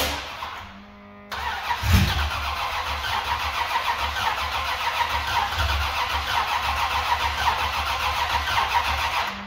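Freshly built high-compression (13.5:1) carburetted LS1 V8 running with no mufflers: very loud and open, cutting in about a second in with a heavy low thump just after, then running steadily and roughly. Its first runs, while the timing and carburettor are still being set up.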